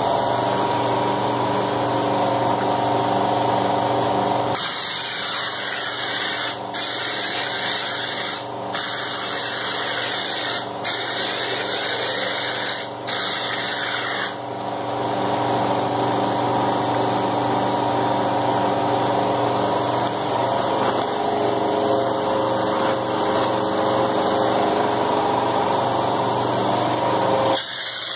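Air compressor running steadily with a rhythmic pumping throb. From about five seconds in, for about ten seconds, the loud hiss of compressed air blasting cement slurry from a hopper spray gun onto a wall, broken by four brief pauses.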